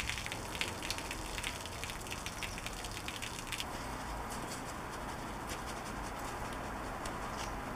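Snow foam fizzing and crackling with dense fine pops as it dwells and drips down a vehicle's bodywork. After about three and a half seconds the crackle thins to a soft, steady hiss with scattered faint ticks as a detailing brush works the foam around the front grille.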